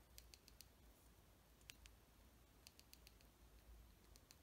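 Faint, light ticks of a pencil tip dabbed against a small plastic model propeller spinner to mark chips and scuffs. They come in short runs of quick taps with pauses between.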